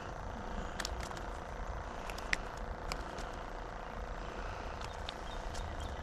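Scattered sharp clicks and taps of handling, the loudest a little over two seconds in, over a steady low hum.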